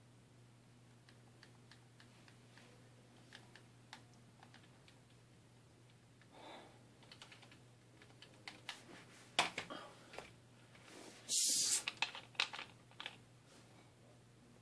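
Faint handling noises: scattered light clicks and taps over a low steady hum, growing busier in the second half. A short, loud hiss lasts about half a second a little past the middle.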